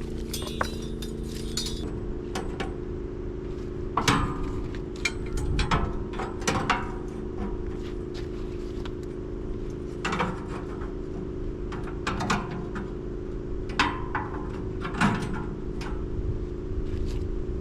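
A machine runs with a steady hum, while a dozen or so sharp clinks and knocks come at uneven intervals.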